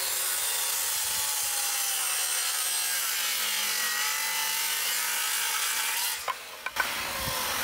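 Porter-Cable corded circular saw ripping a long taper through a pine board, a steady cutting noise that drops away about six seconds in, followed by two sharp knocks.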